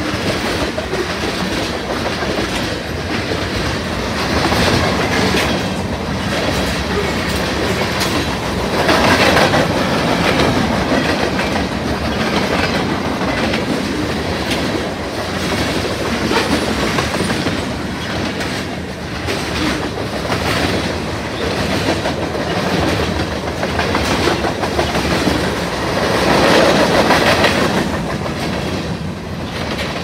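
Cars of a manifest freight train rolling past, the steady rumble of the cars broken by wheels clacking over rail joints. It swells louder about nine seconds in and again near the end.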